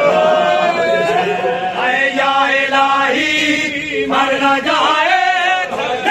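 Male voices chanting an Urdu noha (mourning lament) together, with long held notes that slide up and down in pitch.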